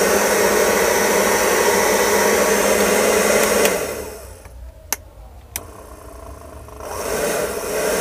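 Chaoba 2800 hair dryer running with a steady blowing hum. A little under four seconds in it stops and winds down, two clicks follow, and about seven seconds in it starts up again. It is working after its faulty diode and switch were repaired.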